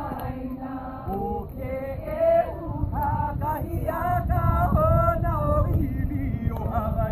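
A group of people singing together in a chant-like song, men's and women's voices, over a low rumble that grows in the second half.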